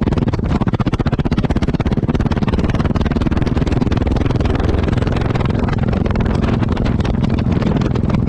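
Yamaha XT660X single-cylinder engine running steadily, its exhaust note a rapid, even train of pulses heard from close to the exhaust outlet.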